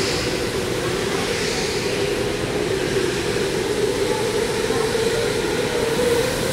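Electric go-karts running on the track, a steady whine from their motors that climbs slightly in pitch toward the end.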